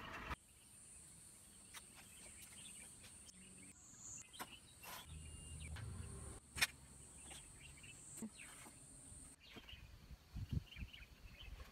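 Insects buzzing steadily at a high pitch, with scattered knocks and clatter from a wooden frame and plastic lens sheet being handled; a sharp click a little past the middle is the loudest, and a few low thumps come near the end.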